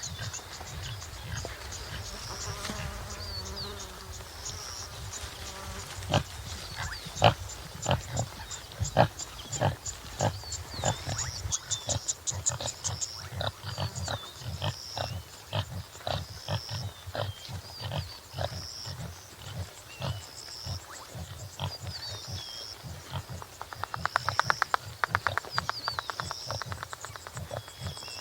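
Topi antelope sounds: a low pitched call a few seconds in, then a long run of short sharp sounds, and a fast pulsing rattle near the end. High steady chirping of insects and short bird notes run behind.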